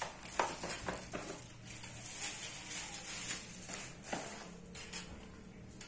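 Handling noise as ring-light parts are unpacked: plastic wrapping rustling, with light knocks and clicks at irregular intervals.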